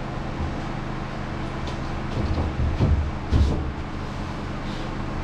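A few knocks and thumps, clustered in the middle, of drywall sheets being handled and pushed into place, over a steady low hum.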